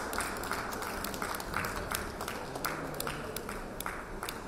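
Audience applauding with scattered, irregular claps from a small crowd, thinning out near the end.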